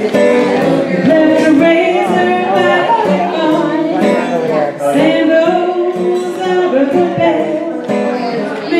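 A woman singing a folk song to a strummed acoustic guitar, her voice holding long notes.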